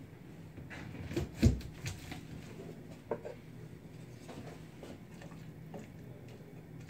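Kitchen handling sounds: a few knocks and clatters of cookware at the stove, the loudest a dull thump about a second and a half in, over a faint steady low hum.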